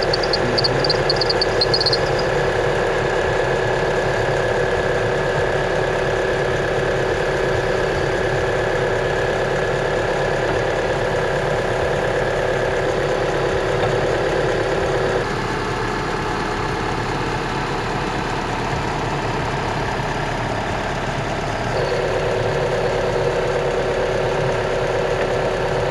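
Mitsubishi Outlander engine idling steadily, its accessory drive belt running without the whistle it had before, cured by a belt-dressing spray. The hum shifts in pitch about halfway through and shifts back a few seconds before the end.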